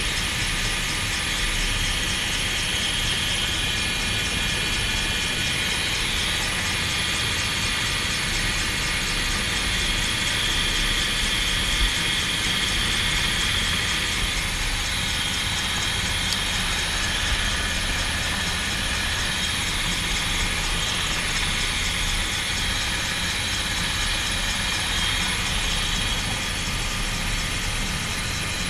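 Helicopter running steadily in flight: a constant rumble with a steady high whine, with no change in pace.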